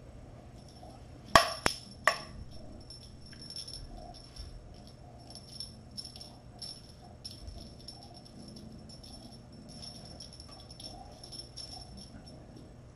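A cat toy with a small bell jingling and rattling on and off as a kitten bats and chases it, after three sharp knocks about one and a half to two seconds in.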